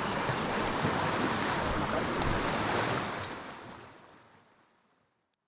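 Rushing river water, an even hiss, fading out from about three seconds in to silence by about four and a half seconds.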